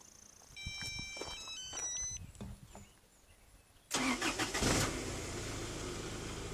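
A short run of electronic beeps, then about four seconds in the 1995 Toyota Tacoma's starter cranks briefly and the engine catches and settles into a steady idle, fired by an Avital remote starter.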